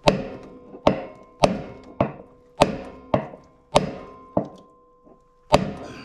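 Sledgehammer blows on a hammer held as a drift against the end of a washing machine drum shaft: about nine ringing metal strikes a little over half a second apart, with a short pause near the end. The shaft is stuck fast, with its rear drum bearing the one at fault.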